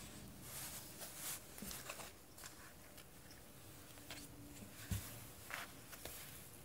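Bengal cat pawing and scrabbling at toys inside a cardboard box: faint scattered rustles and scrapes of cardboard, with a soft thump about five seconds in.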